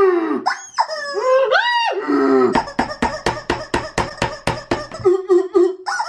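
Toy chicken squawking in rising-and-falling calls, then a rapid clicking of about six clicks a second for a couple of seconds, then short clucks near the end.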